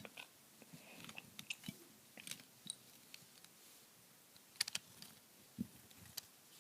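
Faint, scattered clicks and taps of small plastic Lego pieces being handled and pressed together, in a few short clusters.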